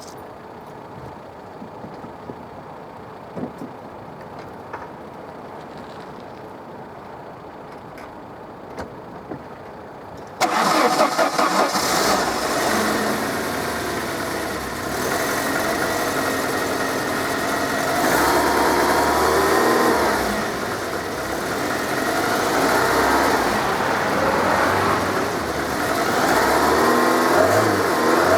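Saab 900i four-cylinder engine: a few faint clicks, then it starts about ten seconds in and runs, the revs rising and falling a few times. No knock is heard; the owner, who was hunting for one, finds nothing at all.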